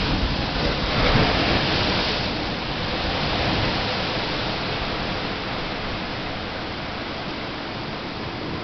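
Heavy surf at a spring high tide breaking against a seawall and washing over the promenade. A loud rushing crash swells about a second in, then settles into a steady wash of foaming water.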